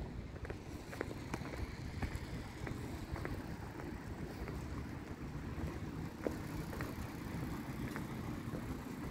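Outdoor street ambience: a steady low rumble, with wind on the microphone, and faint light taps coming every half second or so.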